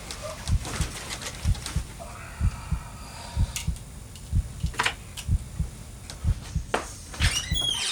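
Heartbeat, a steady low double thump repeating throughout, with a few sharp clicks over it and brief high chirping glides near the end.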